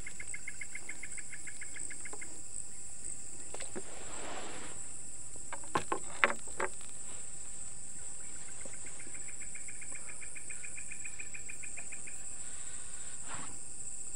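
Night insects: a steady high-pitched cricket chorus, joined twice by a lower, rapidly pulsed trill. A few sharp clicks come about six seconds in.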